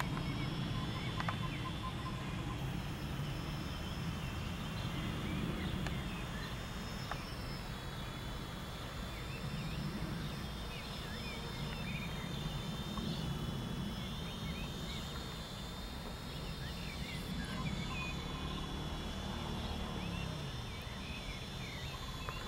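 Faint hum of a distant ArduCopter quadcopter's propellers, swelling and fading as it flies, with scattered short bird chirps and a steady thin high tone over the outdoor background.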